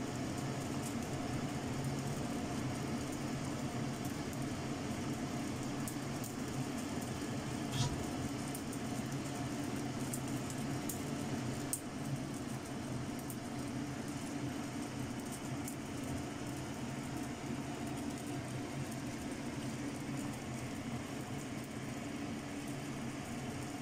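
Water boiling hard in a wok under a steaming rack: a steady low rumble with faint bubbling ticks, and a single sharp click about eight seconds in.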